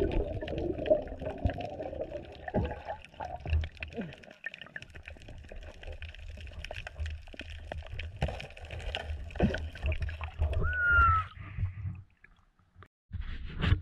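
Water sloshing and gurgling around an underwater camera, with many scattered clicks and knocks. About eleven seconds in there is a short whistle-like tone that rises and then falls.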